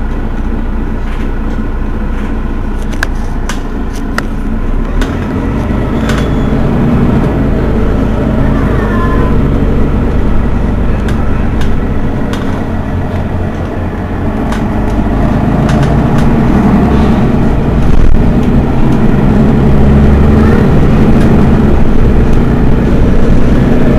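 Mercedes-Benz Citaro facelift city bus standing with its engine idling, growing louder with a stronger low hum about fifteen seconds in.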